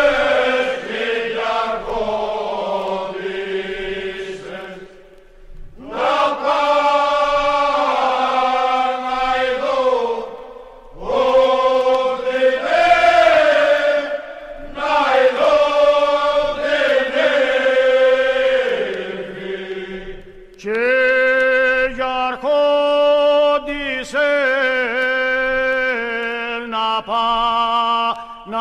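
Unaccompanied singing of a Cretan rizitiko song, in slow, long held phrases with short breaths between them. In the last several seconds the notes turn crisper and steadier, broken by brief gaps.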